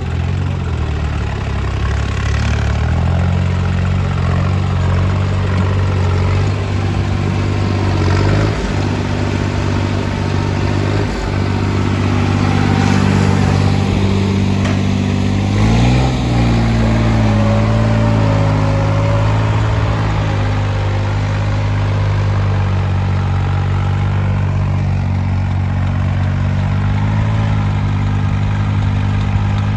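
New Holland tractor's diesel engine running hard under load as it pulls a disc implement deep through sandy soil. The note dips in pitch about halfway through, then recovers and holds steady.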